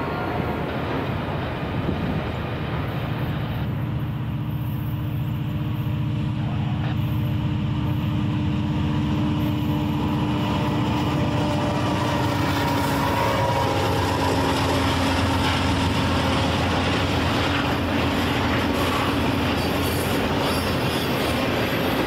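Long freight train rolling past, a steady rumble of railcar wheels on the rails.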